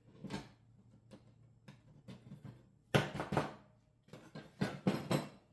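Scattered knocks and clanks of metal parts and tools being handled on a shop bench, with two louder clattering runs about three and five seconds in.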